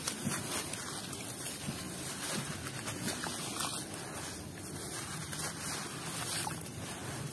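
A wet, gritty sand block crumbling under the fingers in a basin of muddy water, with grains and small lumps splashing and trickling back into the water.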